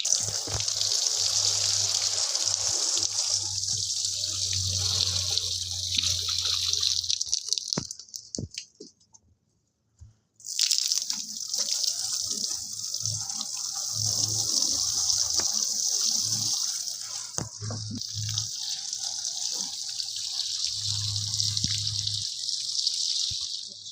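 Running water with a steady hiss, breaking off for about two seconds partway through and then starting again, over a low hum.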